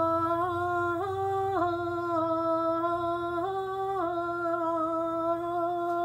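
A woman's solo voice singing a sustained "na" vowel as a choir warm-up line, stepping up to the neighbouring note and back down several times without a break.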